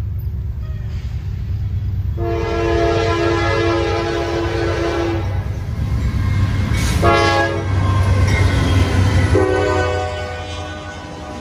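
Diesel freight locomotive's multi-chime air horn sounding a long blast, a short one, then another long one, over the steady low rumble of the locomotive. The long-short-long pattern is the close of the standard grade-crossing horn signal.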